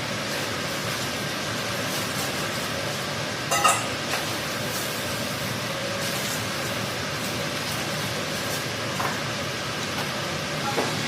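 Steady roar of a gas cooking burner, with one sharp metallic clank of a utensil striking metal about three and a half seconds in.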